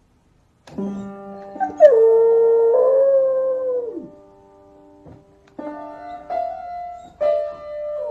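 A beagle-type dog presses keys on a keyboard, sounding held notes, and howls along. Its loudest howl slides down, holds, then fades about halfway through, and a few more key presses and a shorter, falling howl follow near the end.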